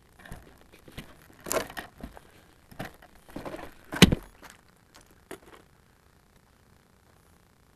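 Handling noise picked up by a camera mounted on a ParkZone Radian RC glider: scattered clicks and rustles as the plane is carried, and a single thump about four seconds in as it is set down on the gravel. A few light knocks follow about a second later.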